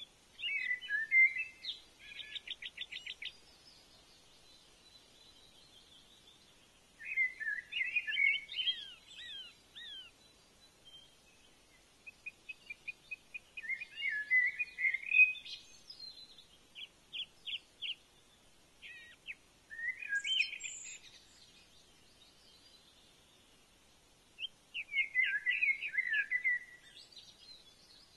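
A songbird singing: five separate song phrases of quick chirps and short trills, each a few seconds long, with pauses of a few seconds between them.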